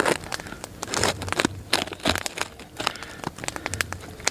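Hultafors Hultan hatchet blade cutting along the backbone of a raw Cornish hen, crunching and cracking through the small rib bones in an irregular run of short snaps and crackles.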